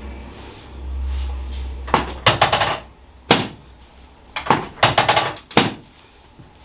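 Sharp knocks and clicks from a small handheld chiropractic adjusting hammer tapping the lower back, in quick runs of several strikes with single taps between. A low hum swells in the first two seconds.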